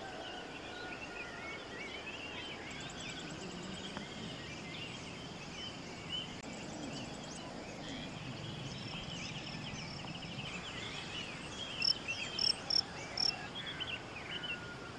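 Birds calling at dawn: many short chirping calls overlapping, with faint insects ticking high behind them. Near the end one bird gives a quick run of about five louder, sharp, high calls.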